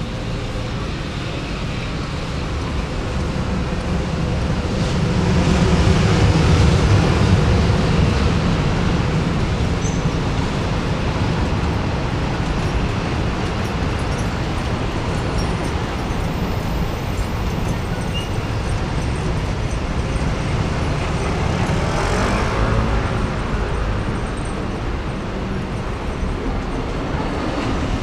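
Steady outdoor traffic noise, with a vehicle passing about five to eight seconds in and another swelling past around twenty-two seconds.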